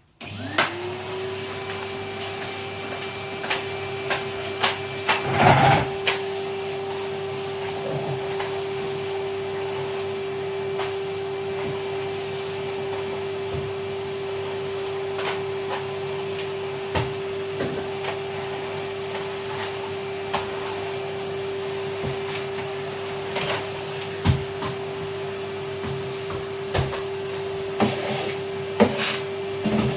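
Vacuum cleaner switched on, its motor spinning up in about half a second to a steady whine and then running continuously. Scattered knocks and clicks, the loudest about five seconds in, sound over the motor.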